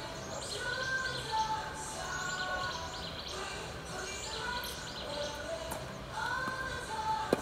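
Outdoor ambience of birds chirping, with faint music underneath. Near the end comes a single sharp crack of a tennis racket hitting the ball.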